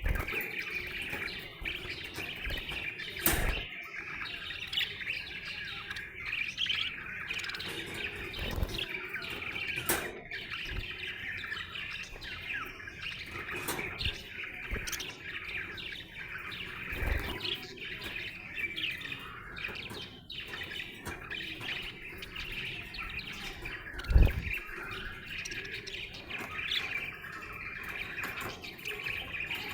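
Budgerigar chattering with a steady stream of chirps and warbles, broken by a few low thumps, the loudest about 24 seconds in.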